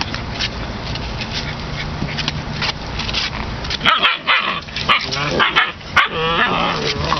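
Litter of puppies play-fighting, yipping and whining; the calls come thick and fast from about four seconds in.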